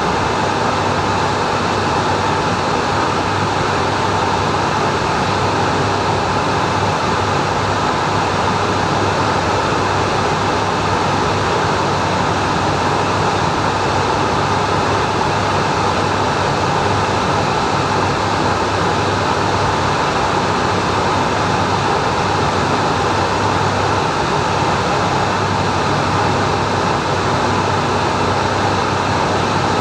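Steady cockpit noise of a Cessna Citation M2 in motion: a constant rush of airflow over the jet's cabin, with the low hum of its twin turbofan engines underneath.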